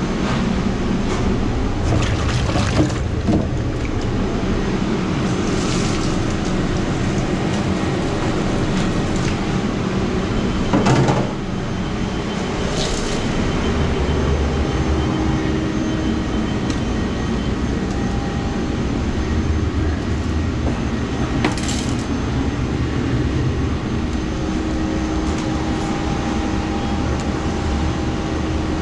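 Steady loud machinery noise of a commercial kitchen, with a low hum and a few short knocks and clanks.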